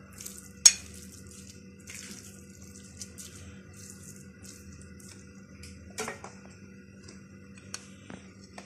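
Metal spoon stirring and scraping minced lamb and beef mixed with chopped onion on a glass plate: soft, wet, repeated strokes, with a sharp clink of spoon on glass about a second in and another near six seconds.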